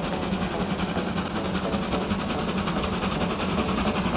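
B-type steam locomotive No. 8347 rolling slowly past along the track: a steady low rumble with fast, regular ticking.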